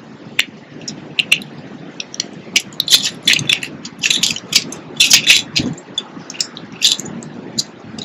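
Birds at a feeder: a quick run of short, sharp clicks and chips, thickest through the middle.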